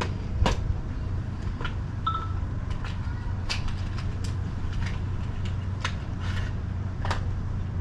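Scattered light clicks and taps of spark plugs and small parts being handled by hand, over a steady low rumble.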